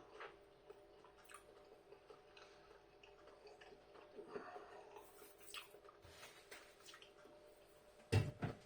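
Faint chewing of a bite of breaded chicken burger, soft small mouth sounds over a steady low hum, with two short louder sounds near the end.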